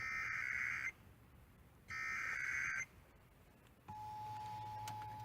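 Emergency Alert System test received on FM radio: two warbling bursts of the SAME header's digital data tones, each about a second long. About four seconds in, the steady two-tone attention signal begins, with a low hum under it.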